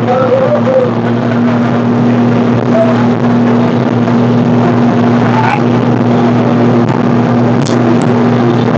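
A motor engine running steadily: a constant low hum under a loud, even rushing noise.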